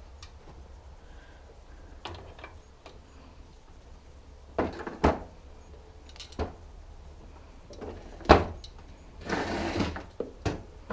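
Scattered metal knocks and clinks of tools and bike parts being handled, with the sharpest knock about eight seconds in and a short rattle just after it.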